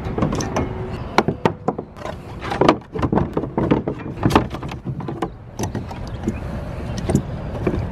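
Irregular clicks, clanks and rattles of metal hardware being handled: a padlock being fitted to a trailer hitch coupler, then kayak tie-down fittings and ratchet straps.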